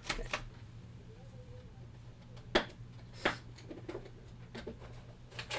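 Scattered sharp clicks and light knocks from small objects being handled on a work surface, with the loudest about two and a half seconds in, over a steady low electrical hum.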